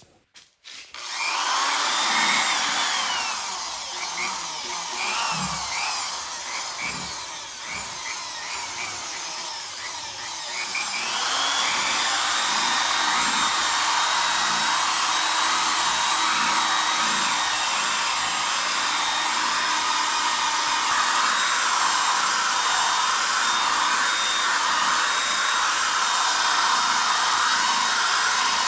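Handheld power tool running continuously with a sanding pad, as in machine-sanding a headlight lens. It starts about a second in, varies in pitch and level for about ten seconds, then runs steadier and louder from about eleven seconds on.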